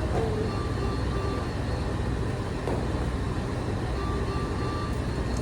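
A steady low mechanical hum, with faint high-pitched tones coming and going over it.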